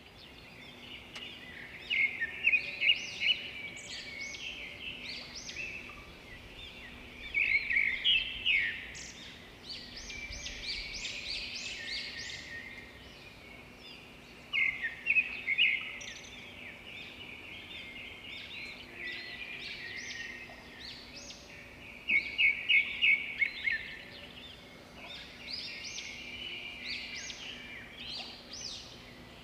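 Birds chirping in repeated bursts of rapid, high-pitched calls, over a faint steady hum.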